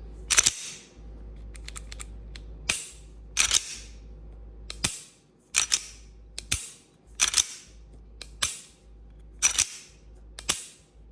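Glock pistol with a Johnny Glocks Vex trigger firing about ten single shots at a slow, uneven pace, one to two seconds apart. Each is a sharp crack with a short echo.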